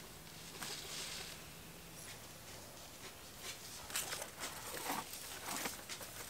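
Faint, irregular scratching and rustling of hands working with material at ground level, a few sharper scrapes clustered about four to six seconds in, over a faint low hum.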